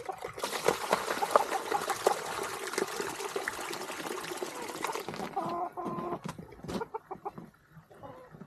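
Water pouring steadily for about four and a half seconds, stopping abruptly, while farm fowl cluck. A short pitched bird call comes just after the water stops, then a few light knocks.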